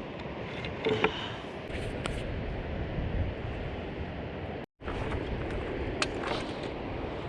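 Steady rushing outdoor noise with a few light knocks; it cuts out for an instant near the middle.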